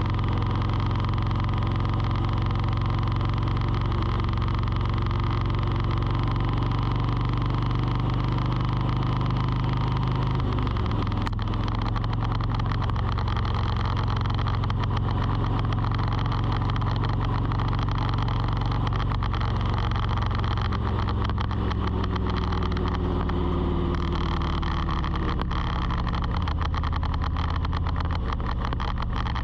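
A motor vehicle's engine running steadily, its low hum shifting pitch a few times, with fine ticking from about twelve seconds in.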